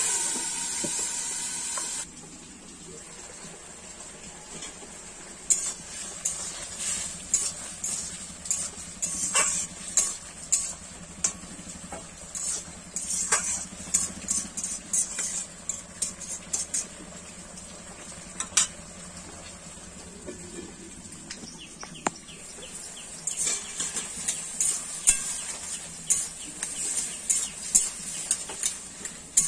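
A metal spatula scraping and clinking against a metal kadai as a cucumber, potato and prawn curry is stirred and sautéed down, over a low sizzle from the pan. A loud steady hiss opens and cuts off suddenly about two seconds in; the scraping starts a few seconds later, pauses for a few seconds past the middle, then resumes.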